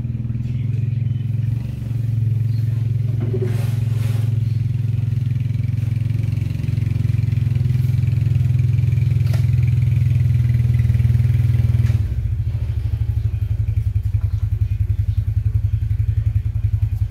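ATV engine running steadily as it pushes a boat trailer, changing about twelve seconds in to a slower, pulsing idle.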